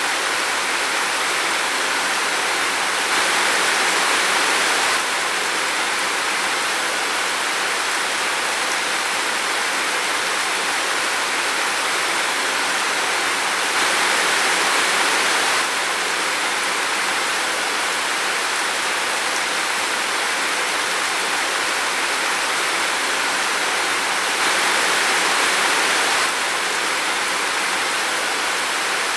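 Steady rain falling in a forest: an even, dense hiss that swells slightly louder three times for about two seconds each.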